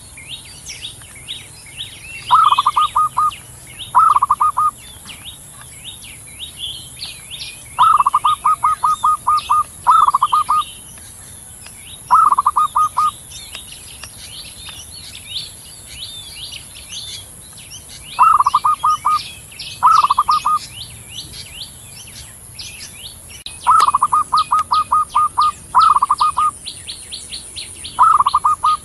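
Zebra dove (perkutut) cooing: short phrases of rapid staccato notes, each lasting about a second, repeated every few seconds. Faint twittering of other small birds and a steady high hiss run underneath.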